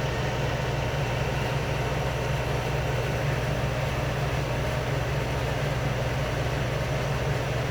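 Two air conditioners running together: a steady low hum under an even rush of fan and air noise.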